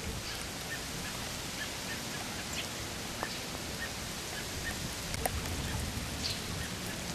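Steady heavy rain falling, an even hiss, with scattered short high-pitched ticks and a few sharp taps through it.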